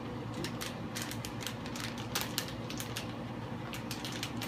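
Plastic packaging crinkling and clicking as it is handled: a rapid, irregular run of short crackles and clicks.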